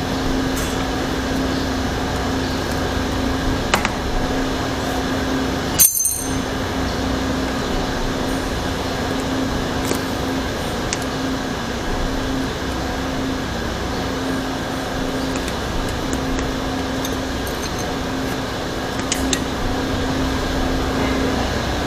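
Scattered small clicks and taps of tire levers prying a bicycle tyre off its rim, with one sharp click about six seconds in, over the steady hum of an electric fan.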